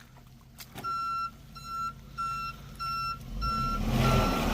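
Vehicle reverse-warning alarm beeping steadily, starting about a second in, at roughly one and a half beeps a second. Engine noise from a vehicle backing up rises under the beeps in the second half.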